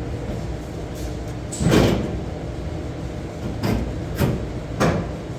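Four short clunks and scrapes of car parts being handled, the first the loudest, over a low steady rumble.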